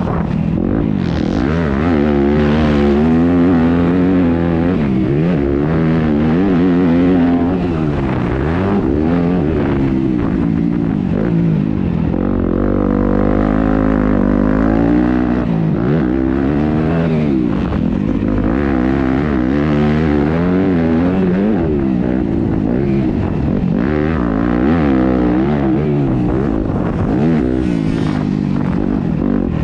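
2019 Yamaha YZ250F single-cylinder four-stroke motocross engine, heard from on the bike, revving up and dropping back again and again as the throttle is opened and closed through the track's corners and jumps.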